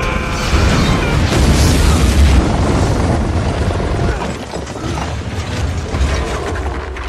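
Cinematic explosion-and-destruction sound effects: a heavy boom that gives way to deep rumbling and crashing debris. It is loudest in the first half and dies down to a lower rumble after about four seconds.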